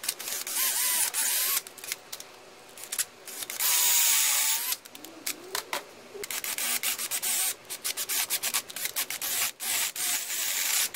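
Ryobi cordless drill boring into a broken screw in an outboard powerhead through a drill guide, run in bursts that start and stop, with the bit grinding through the metal and a wavering whine near the start and again about four seconds in. The hole is being stepped up to a bigger bit, leaving the screw's walls very thin.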